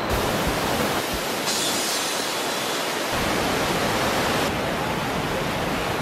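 Steady rushing noise of falling water from waterfalls, changing in tone abruptly a few times as the clips cut.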